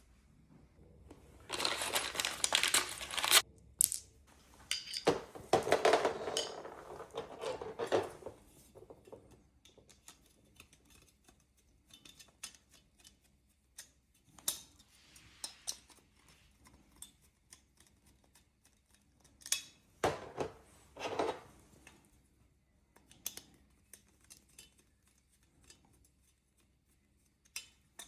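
Intermittent handling sounds: rustling and scraping, then scattered light clicks and knocks as parts and packaging are handled.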